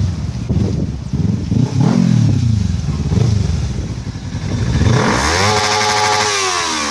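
Kawasaki Ninja 300 parallel-twin engine revved in a series of short throttle blips through an exhaust run fully open, its pitch rising and falling with each blip. From about five seconds in comes a longer, louder engine note that climbs, holds, then falls away.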